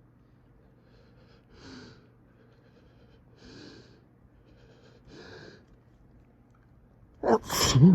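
A person's sharp, breathy inhalations, three of them a couple of seconds apart, building toward an allergic sneeze, then a loud sneeze near the end.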